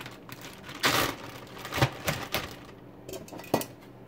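Kitchen handling noise as a plastic zip-top bag and a disposable aluminium pan are moved on the counter: a rustle about a second in, then several sharp clicks and taps.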